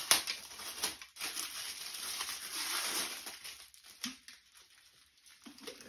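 Clear plastic packaging crinkling and rustling as it is handled and pulled off an item, with a sharp crackle at the start; it is busiest for the first three seconds or so, then dies down to a few faint rustles.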